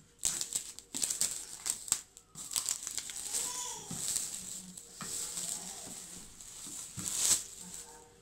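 A cardboard retail box being opened: a knife cutting through its tape seal in quick scrapes and clicks, then crinkling and rubbing as the box is handled and its lid worked loose.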